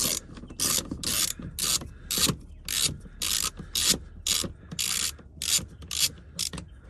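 Hand ratchet turning a 10 mm socket, clicking in short, even strokes about twice a second, as it backs out a bolt holding the plastic engine undercover of a 2020 Toyota RAV4 Hybrid.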